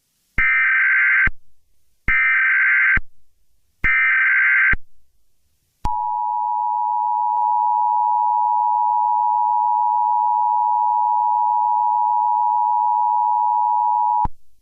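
Emergency Alert System activation: three short, warbling SAME header data bursts, each just under a second long, then the steady EAS two-tone attention signal held for about eight seconds before it cuts off abruptly.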